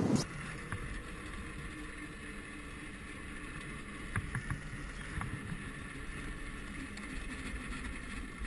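Homemade 48-volt electric go-kart running along a paved road, heard from a camera mounted on its frame: a steady hum of the motor and chain drive over tyre and road rumble, with a few sharp rattles of the frame about four to five seconds in.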